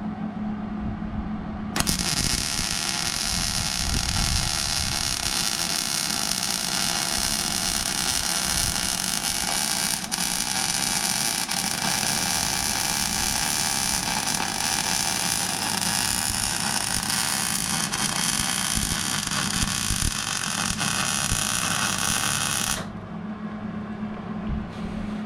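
MIG welder arc laying one continuous bead: a steady hiss that starts about two seconds in and cuts off near the end. A steady electrical hum is heard before and after the arc.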